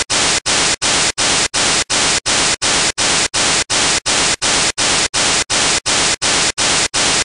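Loud television static: a full, even white-noise hiss broken by brief dropouts about three times a second, cutting off suddenly.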